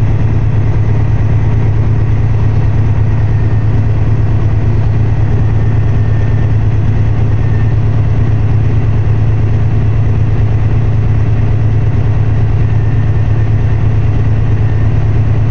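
Vehicle engine idling close by, a steady low hum that holds even throughout.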